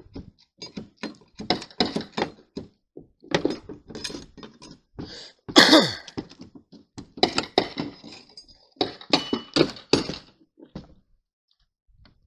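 Claw hammer knocking and prying nails and staples out of a plywood roof deck: irregular knocks and scrapes, with a loud creak falling in pitch about halfway through.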